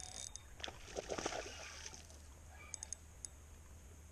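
A short burst of splashing about a second in, typical of a bass hitting a topwater lure as it is hooked, followed by a few quick light clicks near the three-second mark.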